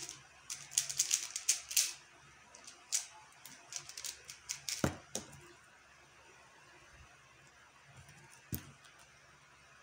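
QiYi X-Man Tornado V1 3x3 speed cube being turned fast, a dense run of quick plastic clicks and clacks, ending about five seconds in with a knock. One more single knock near the end.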